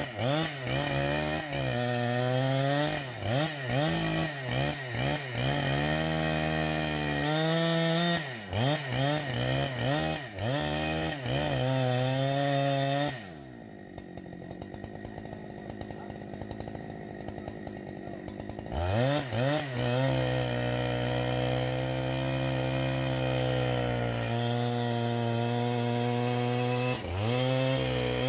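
Husqvarna chainsaw's two-stroke engine revving in repeated blips for the first dozen seconds, dropping to a quieter idle for about five seconds, then revved back up and held steady at high speed, with one brief dip near the end.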